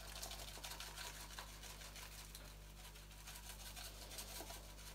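Faint, quick scratchy rattling of a small cardboard carton being shaken to sprinkle frozen chopped basil, with a low steady hum underneath.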